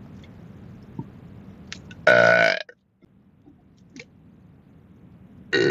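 A person burping loudly twice. The first burp comes about two seconds in and lasts about half a second; the second starts near the end.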